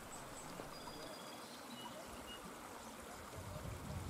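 Faint outdoor ambience: a steady low hiss with a few short, thin, high chirps in the first half, typical of distant birds.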